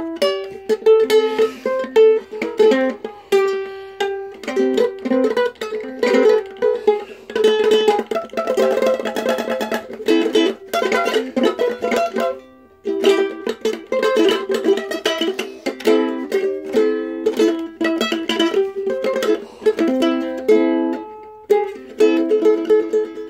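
Ukulele played solo: plucked notes and runs, with a stretch of rapid strumming that breaks off briefly about twelve seconds in before the playing resumes.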